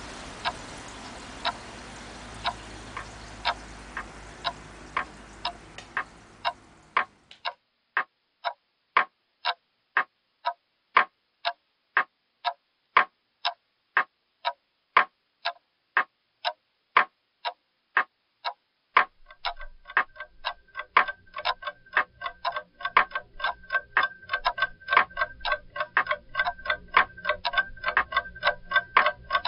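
Clock ticking steadily, about two ticks a second. A background hiss fades away in the first several seconds. Past the middle, a second, faster ticking with a faint ringing tone layers over it.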